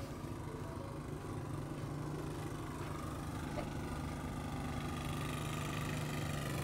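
Portable gasoline generators running steadily with an even engine hum, growing slightly louder.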